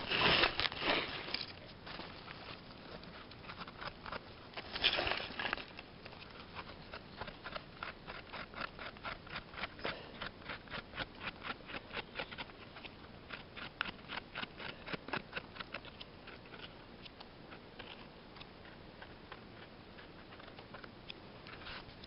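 Knife scraping and trimming the stem of a freshly picked mushroom: a long run of short scraping strokes, about three a second, after a couple of louder rustles of handling in dry leaf and pine-needle litter.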